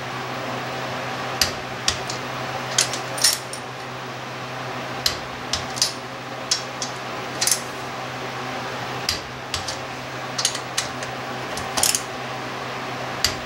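Sharp metallic clicks and clinks, a few every second or two, from a socket and torque wrench working the cylinder head bolts of a Kohler engine up to 30 foot-pounds, over a steady low hum.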